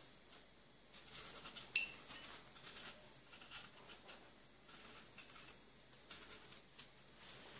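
Paring knife peeling an apple by hand: faint crisp scrapes and small clicks as the blade cuts through the skin, with one sharper click a little under two seconds in. A faint steady high whine sits underneath.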